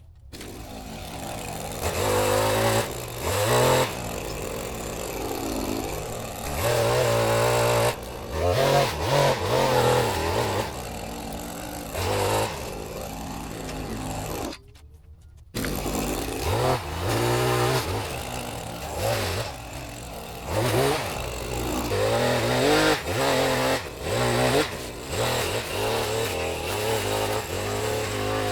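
Small gas-powered saw revving up and down again and again while cutting Leyland cypress limbs, with a short break about halfway through.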